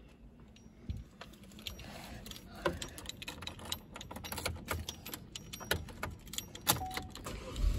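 Scattered light clicks and small rattles of handling inside a car cabin, getting busier after about two and a half seconds, with one sharper click near the end. A steady low hum comes in right at the end.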